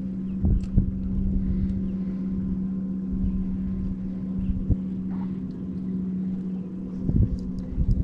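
Boat's outboard motor running steadily at low trolling speed, a constant low hum, with a few short low thumps on the microphone.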